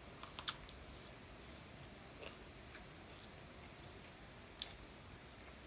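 Quiet sounds of people eating rice by hand: chewing and mouth noises, with a quick cluster of sharp clicks just after the start and single clicks about two seconds in and near the end, over a faint steady hiss.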